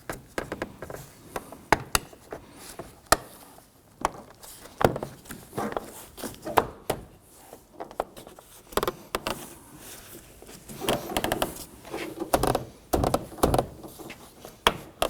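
Plastic interior door trim being fitted and pressed into place: scattered clicks, snaps and knocks, some in quick runs.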